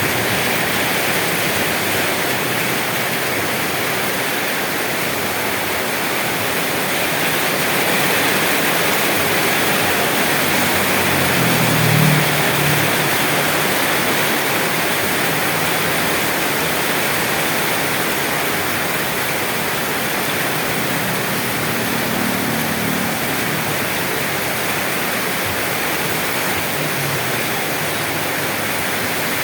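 Steady, heavy rainfall hissing evenly. A brief low rumble rises under it about twelve seconds in, and another around twenty-two seconds.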